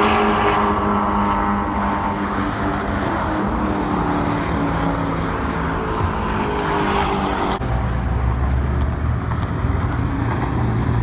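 Lexus IS F's V8 through an X-Force cat-back exhaust on stock headers, the car driving on a racetrack: its engine note falls in pitch as it goes by at a distance. After an abrupt change about two-thirds of the way in, a steady low engine note as the car rolls slowly close by.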